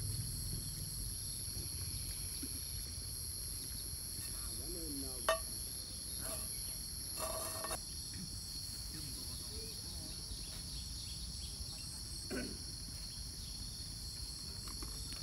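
Steady high-pitched drone of insects calling, with a low steady rumble underneath. A few light knocks come through, the sharpest about five seconds in.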